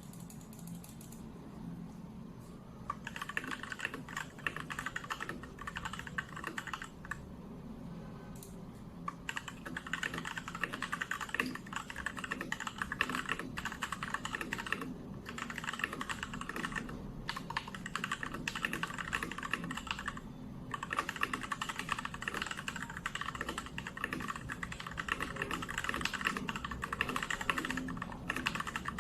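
Typing on a Royal Kludge RK84 mechanical keyboard: quick runs of key clicks that start about three seconds in. The clicks break off in a short pause about eight seconds in and in a few brief gaps later.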